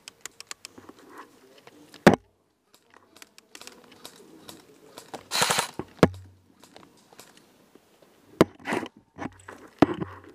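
Scattered sharp clicks and knocks of airsoft rifle handling and airsoft gunfire, the loudest knock about two seconds in, with a short noisy rushing burst about five seconds in.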